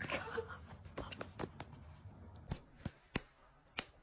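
A series of sharp, faint taps or clicks at irregular intervals, about seven or eight over a few seconds.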